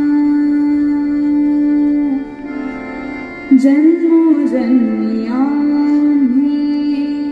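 Indian devotional abhang music: a long steadily held note, then from about three and a half seconds a wordless melody that glides up and down, with a few sparse pakhawaj and tabla strokes.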